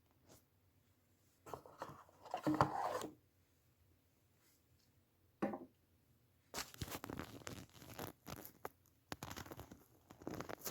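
Paper and cardboard packaging being handled and pulled open: irregular bursts of rustling, crinkling and tearing, with a longer crackly run in the second half.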